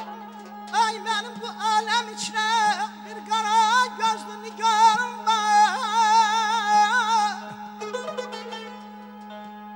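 Male mugam singer (khanende) singing a melismatic phrase full of fast wavering trills, over plucked tar accompaniment and a steady low hum. The voice stops about seven seconds in, leaving soft plucked tar notes.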